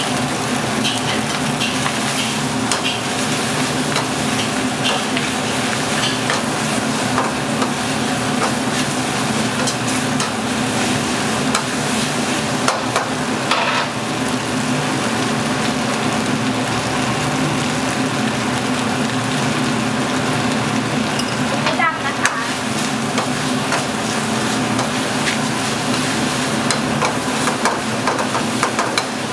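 Noodles sizzling in a hot wok as a metal spatula stirs and scrapes them, with scattered clinks of metal on metal over a steady low hum.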